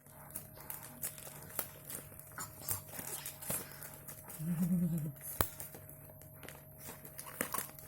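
Scattered light clicks and taps from a parcel being handled, over a steady low hum, with a short hummed voice sound about four and a half seconds in and a sharper click just after it.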